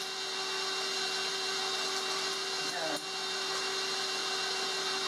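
Steady hum of a kitchen appliance's electric motor running.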